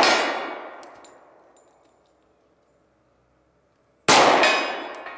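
Two shots from a Glock 20 10 mm pistol firing 230-grain hard-cast bullets through a Lone Wolf barrel, about four seconds apart. The first is already ringing away as the sound begins, and each report rolls off over a couple of seconds.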